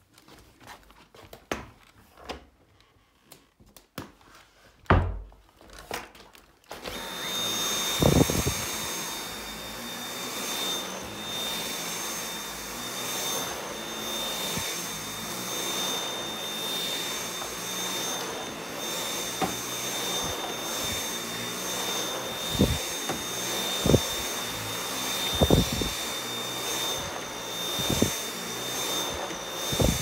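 A few clicks and knocks, then about seven seconds in a Dyson V8 Absolute cordless stick vacuum is switched on and runs steadily with a high motor whine while its motorised brush head is pushed over a thick rug. Several sharp thumps come through the run, mostly near the end.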